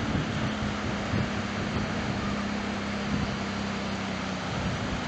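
Quad bike engine running steadily as it drives along the sand, a low drone that sinks slightly in pitch near the end, over a steady hiss of surf and wind.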